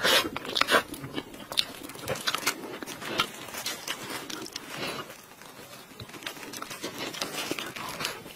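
Close-up chewing and wet mouth sounds of a person eating soft purple cream cake, with plastic food gloves crinkling as the cake is handled, and another bite near the end.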